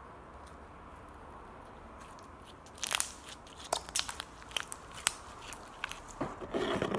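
Slime squeezed and kneaded between the hands, giving an irregular run of sharp crackles and pops that starts about three seconds in, the first pop the loudest.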